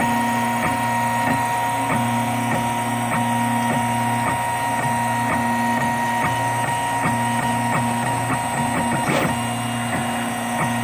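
An Airwolf 3D printer running, laying down a solid layer of ABS: a steady whine from its stepper motors, with a short tick about twice a second as the print head reverses, and a quick whir about nine seconds in.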